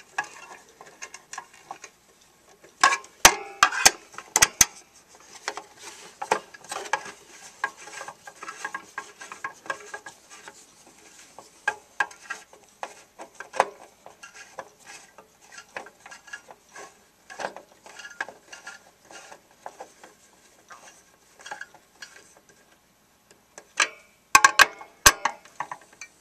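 Screwdriver driving a screw into a Dell OptiPlex 760's plastic fan shroud, knocking against the case: scattered clicks and scrapes, with two louder bursts of clicking about three seconds in and near the end.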